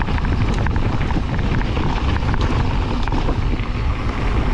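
Wind rumbling across the camera microphone as an electric mountain bike rides a trail, with scattered clicks and rattles from the bike over rough ground.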